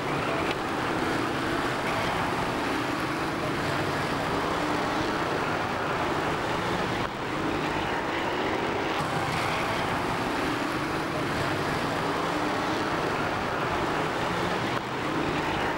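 Engines of a pack of winged stockcars racing together, one steady dense drone with brief dips about seven seconds in and near the end.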